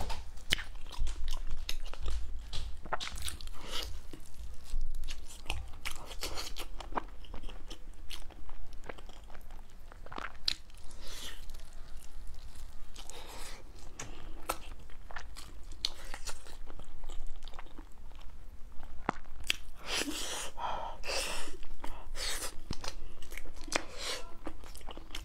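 A person biting and chewing braised pork on the bone close to the microphone: wet mouth sounds and irregular clicks, busiest and loudest near the end.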